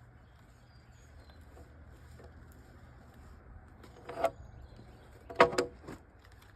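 A few sharp knocks: one about four seconds in, then two or three close together a second later, the loudest with a brief ringing tone. Faint bird chirps and a steady low hum lie underneath.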